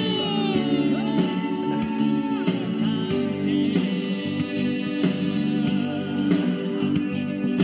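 Music with singing: voices holding sustained, choir-like chords, with a high voice holding a note and sliding down in the first couple of seconds.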